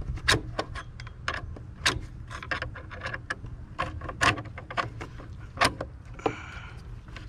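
Irregular sharp clicks and taps of a T-handle Allen key knocking against metal and plastic parts as it is worked onto a bolt it does not fit, over a low rumble.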